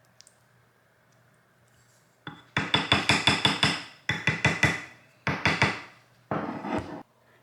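Four bursts of fast, sharp knocks, roughly eight to ten a second, starting about two seconds in and stopping shortly before the end.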